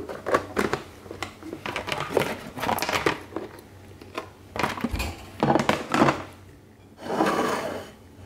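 A pink plastic bag crinkling and rustling as it is wrapped around a plastic food container, in irregular crackles and clicks. About seven seconds in, a plate slides briefly across the countertop.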